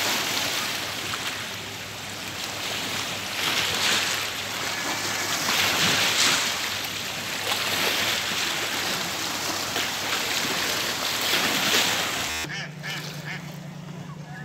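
Small lake waves washing and splashing against a rocky shoreline, swelling every couple of seconds. About two seconds before the end the sound cuts to a quieter background with a steady low hum.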